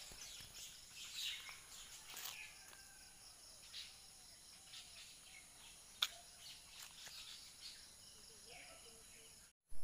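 Rural morning ambience: a steady high drone of insects, with scattered bird chirps. There is one sharp click about six seconds in, and the sound cuts off abruptly just before the end.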